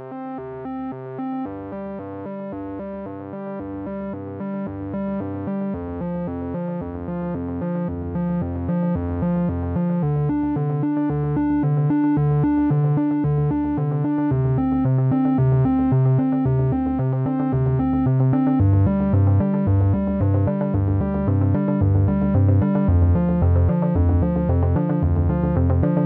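Background music: a keyboard and synthesizer track over a steady pulsing bass, growing gradually louder.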